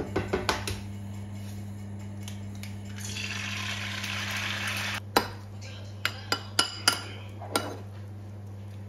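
An egg tapped a few times to crack it, then a steady sizzle for about two seconds as it fries in a hot pan, cut off abruptly. Then a metal spoon clinks against a ceramic bowl about six times while stirring a seasoning sauce.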